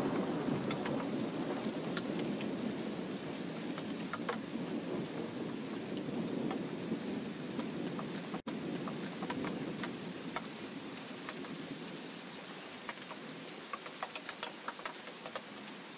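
Thick mutton kurma gravy bubbling as it simmers in the pan, a steady seething with scattered small pops that slowly fades.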